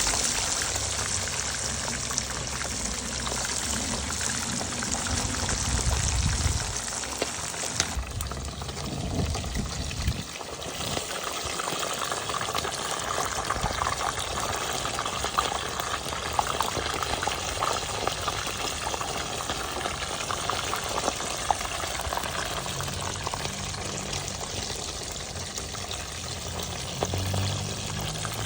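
Spot fish frying in hot oil: a steady sizzle with scattered small pops and crackles. About eight seconds in the hiss thins and turns more crackly.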